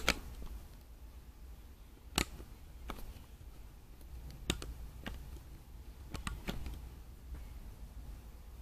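Handling noise: about eight sharp, scattered clicks at irregular intervals over a low steady hum, the loudest right at the start and about two seconds in.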